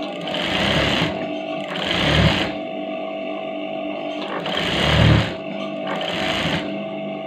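Sewing machine stitching a folded strip of fabric in four short runs, each under a second, with pauses between them.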